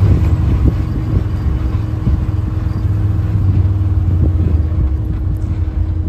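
A UTV (side-by-side) running as it drives along: a loud, steady low rumble with an even engine hum and scattered knocks and rattles.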